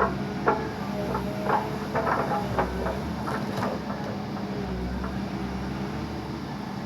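Backhoe's diesel engine running steadily, with scattered knocks over it.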